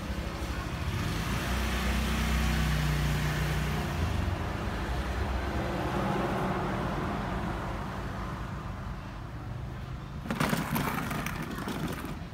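A motor vehicle's engine running and going by, its low rumble swelling and then fading away. A short scuffing noise about ten seconds in.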